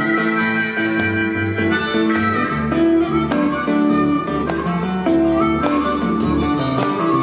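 Live blues duet: a harmonica plays a melody of held notes, amplified through the microphone, over guitar accompaniment.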